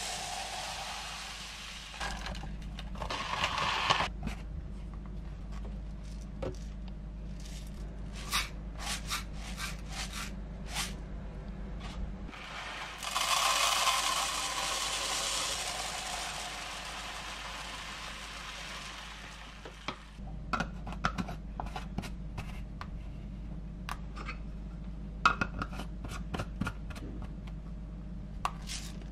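Dry brown rice and mixed grains poured into tall storage jars, a hissing rush of falling grain, with a long pour about halfway through. Scattered clicks and taps come from the jars and lids being handled.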